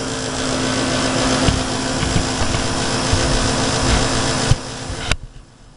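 Gas furnace running with its burners lit, the indoor blower and combustion inducer motors making a steady noise with a low hum. About four and a half seconds in there are two clicks, and the sound drops away sharply near the end.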